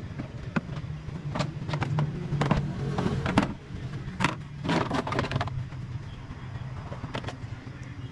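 Irregular knocks, clicks and clatter of hand work inside a stripped-out car cabin, with a busier run of knocks about halfway through, over a steady low hum.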